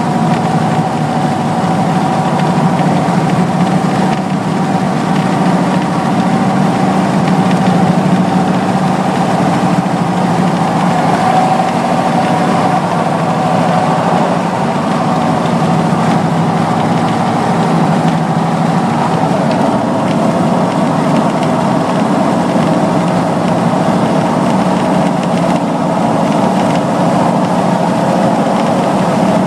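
Car cabin at highway speed: a steady drone of engine and road noise with a held tone that drifts only slightly in pitch.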